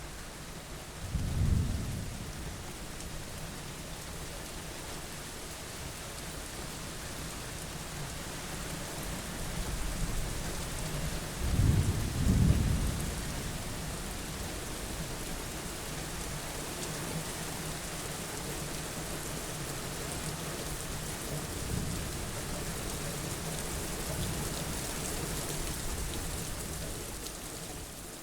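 Steady rain falling, with thunder rumbling: a clap about a second and a half in, a louder rolling peal around twelve seconds in, and fainter rumbles later.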